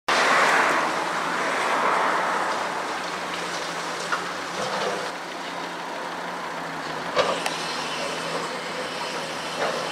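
Caterpillar 345C L demolition excavator running steadily while its hydraulic crusher breaks up a reinforced concrete silo wall: a continuous crunching rush, heaviest in the first two seconds, with sharp cracks of concrete giving way a few times.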